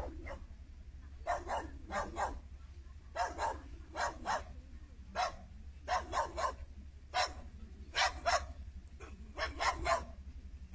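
A dog barking over and over, in quick runs of two to four barks with short pauses between.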